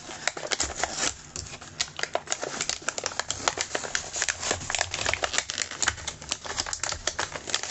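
Cardboard-and-plastic blister packaging being torn and pried apart by hand: a steady run of crinkling and crackling with many sharp little clicks.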